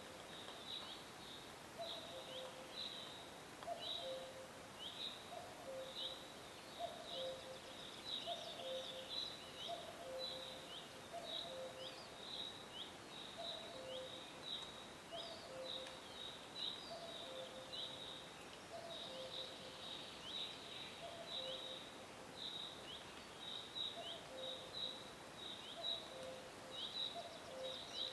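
Forest birdsong ambience: a dense run of short, high chirps from small birds, over a low two-note call, higher note then lower, repeated about once a second on a faint background hiss.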